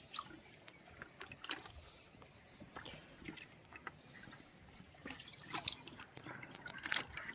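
Water dripping and splashing lightly in small, irregular drops and plops, with scattered soft clicks.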